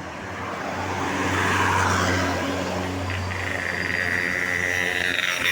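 A large tour bus driving past, its engine hum swelling to a peak about two seconds in. A steady high-pitched tone follows for about two seconds, sagging slightly in pitch.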